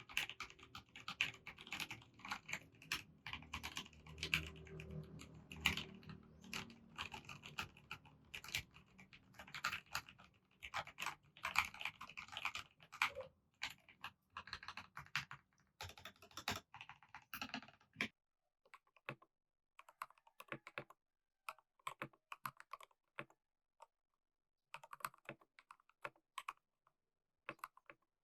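Typing on a Redragon K530 Draconic 60% mechanical keyboard with PBT keycaps. Fast, dense keystrokes run for about the first eighteen seconds, then give way to slower, separated keystrokes with a quieter background.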